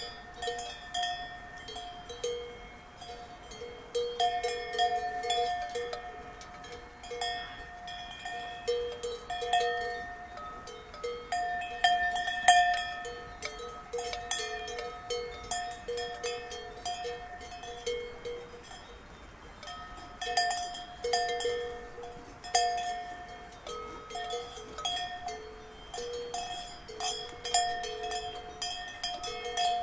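Cowbells on grazing cows clanking and ringing irregularly as the animals move, several bells of different pitch sounding at once.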